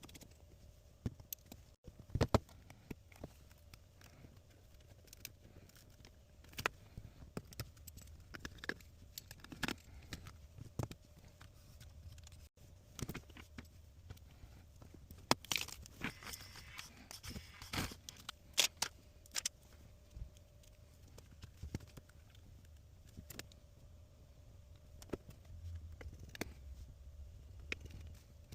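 Small repair tools clicking, tapping and scraping on a phone during a battery replacement, with a longer rasping, tearing sound about halfway through.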